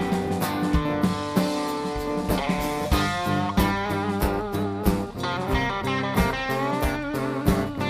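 Blues band playing an instrumental passage with a guitar lead whose notes bend in pitch over a steady beat.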